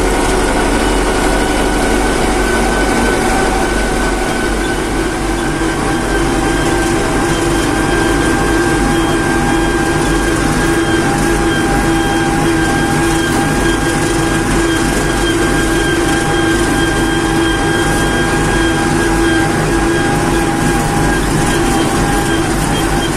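Fiat 640 tractor's four-cylinder diesel engine running steadily as the tractor drives along, with a steady whine over it that grows stronger about five seconds in.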